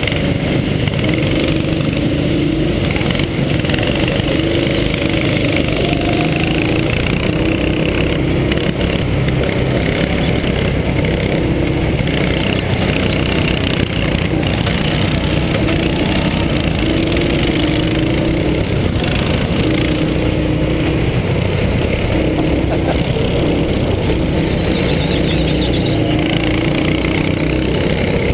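Go-kart's small petrol engine running hard, heard on board the kart as it drives the track, with the engine note coming and going.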